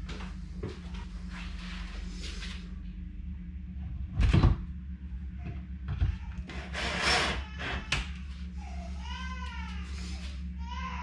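Knocks and handling as a wall shelf and its brackets are worked on, the loudest a single knock about four seconds in, and a short rasping noise around seven seconds. Near the end a domestic cat meows two or three times, each call rising and falling in pitch.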